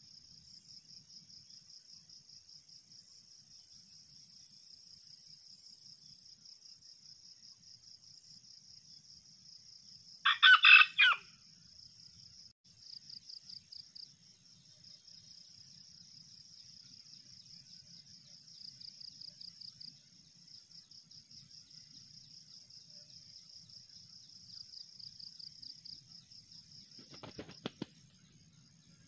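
A red junglefowl rooster crows once, loud and about a second long, roughly ten seconds in, over a steady high chirring of insects. A brief rustle comes near the end.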